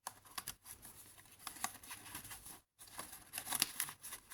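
Paper rustling and crinkling as journal pages and loose note papers are handled, with scattered light clicks and taps. There is a brief gap of silence a little over halfway through.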